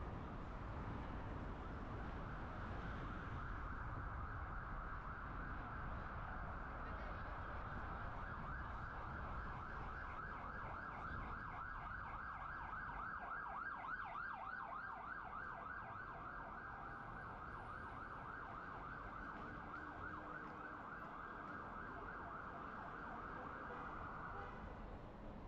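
Emergency vehicle siren sounding over steady road noise, switching to a fast warbling yelp for several seconds in the middle and cutting off near the end.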